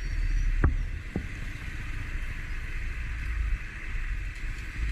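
Honda PCX scooter's single-cylinder engine running steadily at low speed, under a steady hiss. Two short knocks come about half a second and a second in.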